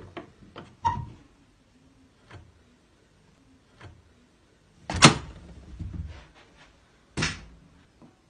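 Irregular knocks and thumps: several sharp clicks in the first second, a few faint ones, then the loudest thump about five seconds in and another knock about seven seconds in.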